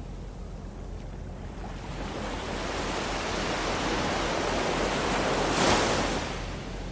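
Small waves washing onto a beach. The surf hiss swells over a few seconds, peaks as a wave breaks near the end, then eases off.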